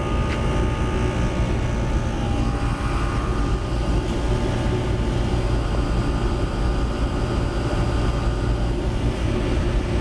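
A McQuay dual-compressor water source heat pump with its access panels off, both compressors running, together with a Goodman condenser running next to it: a loud, steady mechanical hum that holds unchanged throughout.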